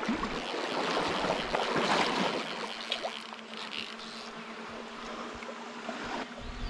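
River water rushing and splashing in the current, louder for the first few seconds, with scattered small clicks.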